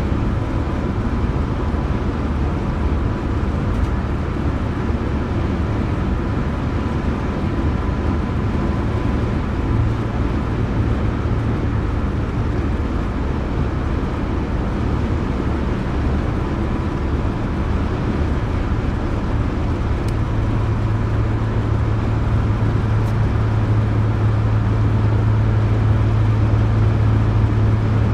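Volvo PV 544 cruising at motorway speed, heard from inside the cabin: steady engine drone mixed with road and wind noise. The low drone grows stronger about two-thirds of the way through.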